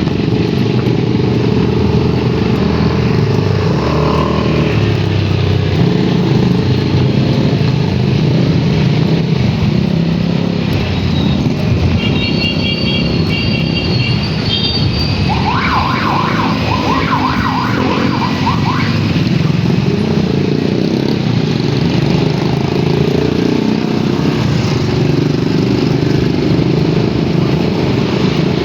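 Motorcycle riding on the road, its engine running steadily under heavy wind rumble on the microphone. About halfway through there are a few seconds of short, high, pitched beeps and warbling tones.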